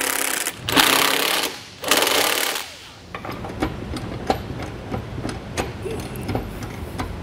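Cordless impact driver hammering mounting bolts tight in three short rattling bursts over the first few seconds. After that, quieter scattered clicks of small hardware being handled.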